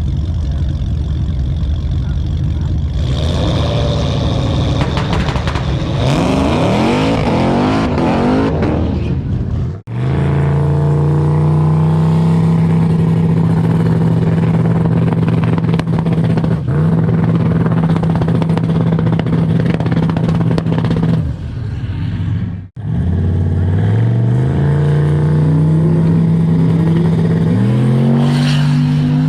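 Turbocharged LS V8 of a street-legal drag car running loud. It revs with sweeping pitch, holds a steady note, then climbs in pitch in steps as it accelerates near the end. The sound cuts off abruptly twice.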